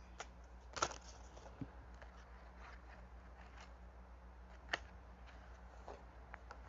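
Tarot cards being handled: a few faint clicks, taps and rustles as cards are picked up and laid down, with the sharpest tap about three-quarters of the way through, over a faint low hum.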